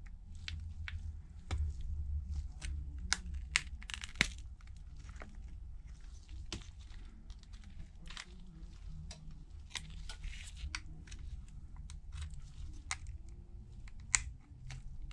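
Irregular small clicks, taps and crinkly scraping as gloved hands handle an opened iPhone 12 Pro, lifting its display away from the frame.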